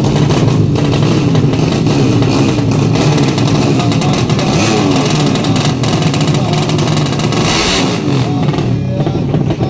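Drag-racing motorcycle engine running loud at the start line, revved up and down again and again. A short rush of hiss is heard about eight seconds in.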